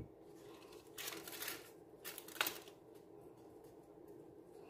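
Faint crinkling of a Kiri cream cheese portion's foil wrapper being peeled off by hands in plastic gloves, in a few short rustles.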